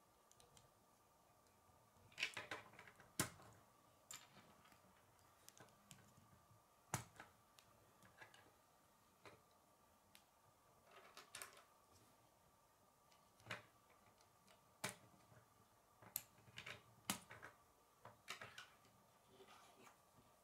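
Plastic K'nex rods and connectors clicking and clattering as they are handled and snapped together by hand: scattered sharp clicks and short rattling runs of clicks, about a dozen spread through.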